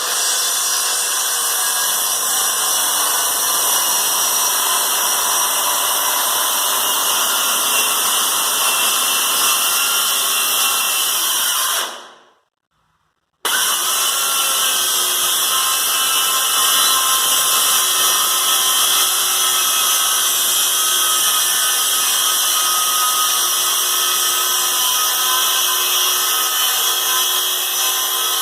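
Bosch circular saw running and cutting through particle board, a steady loud whirring with a high, hissy edge. About twelve seconds in the sound drops away to nothing for about a second and a half, then resumes abruptly at full level.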